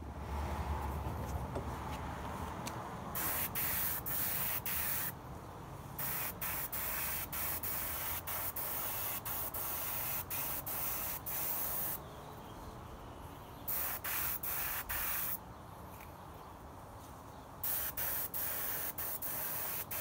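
Aerosol spray paint can hissing in repeated bursts, some lasting several seconds, with short quick puffs in between.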